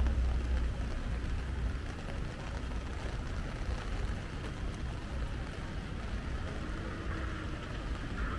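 Rainy city street ambience: a steady low rumble of traffic under an even hiss of rain and wet pavement.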